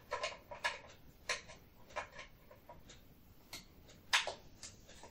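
Light, irregular clicks and taps of hard plastic and metal as a grater blade insert is pushed and worked into a food processor's plastic grater disc, about a dozen small ticks with a slightly louder pair about four seconds in.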